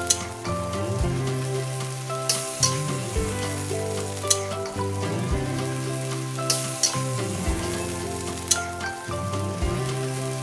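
A metal spatula scraping and clicking against a wok as water spinach and tofu are stir-fried in a little sauce, with a light sizzle, over background music.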